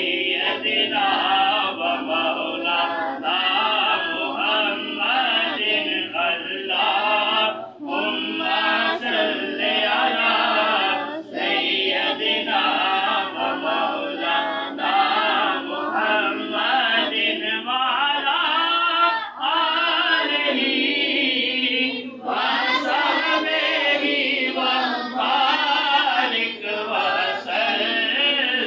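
A group of voices singing a devotional chant together, continuous and unaccompanied.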